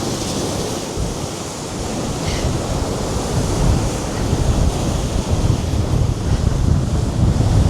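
Sea waves surging and breaking at high tide, with strong gusty wind buffeting the microphone as a low rumble that gets heavier in the second half.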